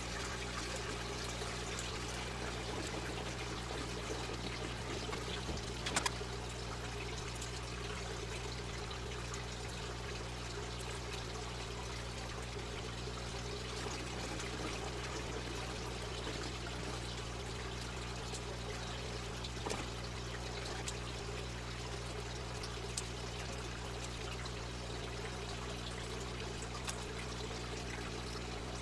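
Water trickling steadily through an aquaponics system, over a low steady hum. A few short clicks break through, the sharpest about six seconds in.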